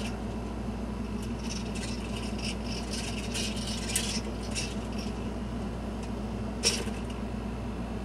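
Hobby servos in a three-axis animatronic skull whirring and ticking in short bursts as they replay recorded joystick movements, with one sharper click about two-thirds of the way through, over a steady electrical hum.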